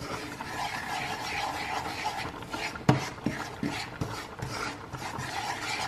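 Wooden spoon stirring and scraping butter and sugar melting together in a nonstick frying pan, with a few light knocks of the spoon against the pan near the middle.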